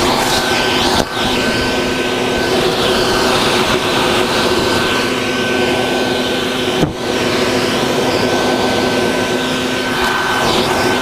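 Vacuum cleaner running steadily, sucking up hornets from their nest: a steady rush of air with a constant motor whine, briefly dipping twice.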